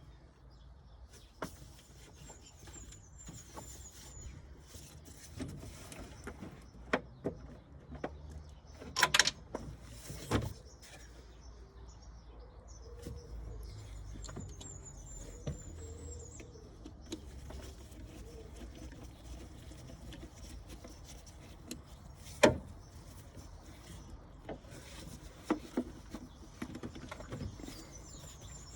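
Scattered clicks and knocks over a low rumble. The loudest are a few sharp knocks, a cluster about nine to ten seconds in and one about twenty-two seconds in. Faint bird chirps come and go.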